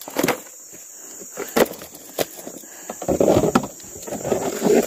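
A steady high insect drone, with a few sharp knocks in the first half and two louder bursts of rough rustling noise near the end.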